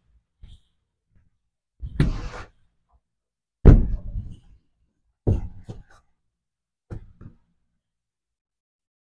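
Pieces of sawn lumber knocked and set down into a truss jig: four separate wooden thuds about a second and a half apart, the second the loudest, with a few lighter knocks between them.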